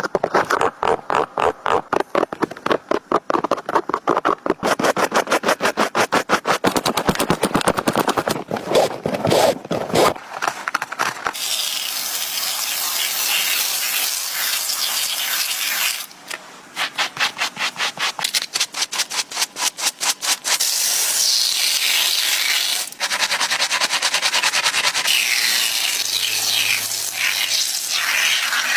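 Shoe-repair work: rapid, regular rubbing strokes for about the first ten seconds, then a steady hissing sanding sound. A second run of quick strokes comes a little past halfway, and the hissing sanding returns to the end.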